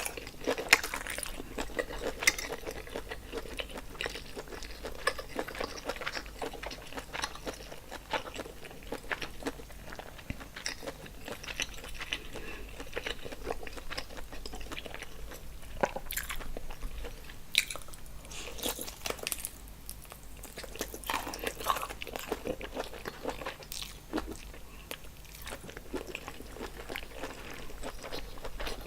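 Close-miked eating sounds: a person chewing and biting seafood-boil food in sauce, with irregular wet mouth clicks and smacks throughout.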